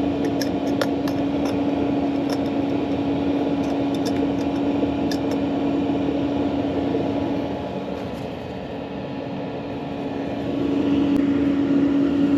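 Autoterm Air 2D diesel air heater running at maximum heat: a steady fan hum with one constant tone, and a few light ticks in the first few seconds. The hum drops in level for about three seconds past the middle, then comes back up.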